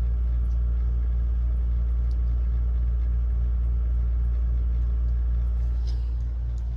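Steady low hum, easing slightly near the end.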